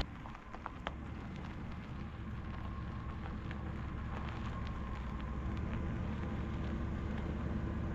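A camper van's engine running low and steady as the van rolls slowly over dirt, with a faint scattered crackle from the tyres on the ground.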